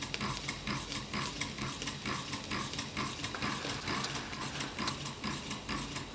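Homemade gamma-type Stirling engine running, with a rapid, even mechanical ticking of several ticks a second.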